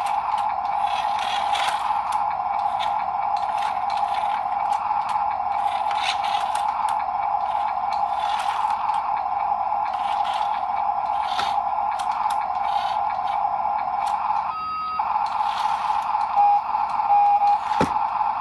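Small electric motor and gearbox of a toy RC dump truck whining at a steady pitch, with scattered clicks and rattles. Near the end the whine drops out for a moment and then shifts pitch a few times.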